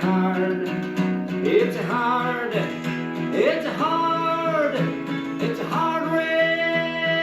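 A singer holds long, drawn-out notes of the refrain "it's a hard" over strummed acoustic guitar, a new note starting about every two seconds.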